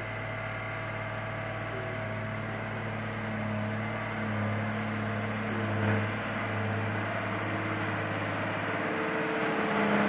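Large all-terrain mobile crane's diesel engine working steadily as the crane drives up the slope out of the field, growing louder as it comes close near the end.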